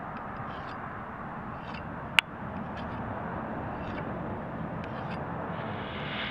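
Brief scraping strokes of a small handheld sharpener drawn along a hatchet's steel edge, about one a second, over steady background noise, with one sharp click about two seconds in.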